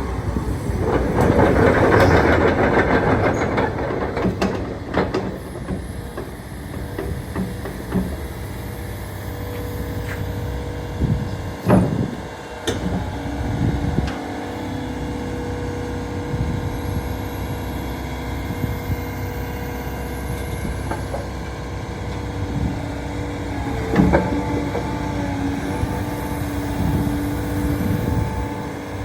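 Komatsu PC490LC-11 excavator's diesel engine and hydraulics running, with a steady whine throughout. A loud surge comes in the first few seconds, and sharp clanks come about twelve seconds in and again near the end.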